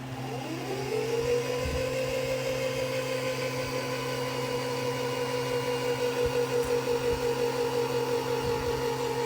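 Singer Heavy Duty 4432 sewing machine's motor starting up, its whine rising in pitch over about the first second, then running steadily at speed.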